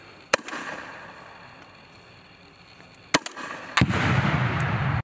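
M32 six-shot 40mm grenade launcher firing. A sharp report with a short echo comes about a third of a second in, and two more cracks follow in quick succession about three seconds in. Near the end another crack opens a loud, steady rush of noise.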